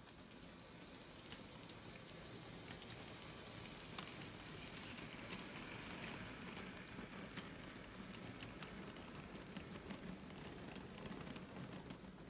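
LEGO train rolling over a Brick Tracks R104 plastic switch and curved track: a steady rattle of wheels and drive that swells as the train passes and fades as it moves off, with a few sharp clicks along the way.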